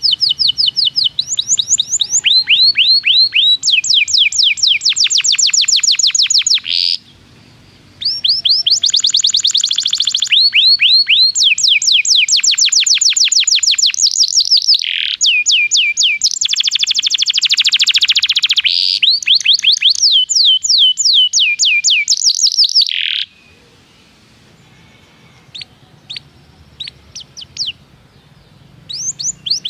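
Domestic canary singing long trills of rapidly repeated notes, one phrase after another at changing pitch. The song stops briefly about seven seconds in, then falls mostly quiet for the last several seconds apart from a few faint chirps, and starts again right at the end.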